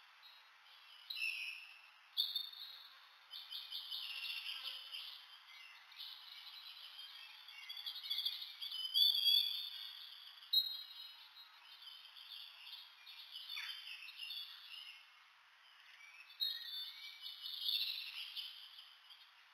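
Shrew giving high-pitched twittering squeaks, rapid trains of tiny pulses that come in bouts of a second or a few seconds with short pauses between.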